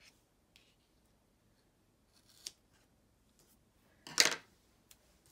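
Paper strips being handled and pressed onto a planner page: a few brief crisp paper sounds, the loudest about four seconds in, followed by a small click.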